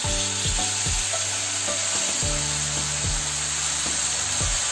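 Tamarind juice sizzling and hissing as it hits hot oil with fried onions and chillies in a frying pan, while a wooden spatula stirs it.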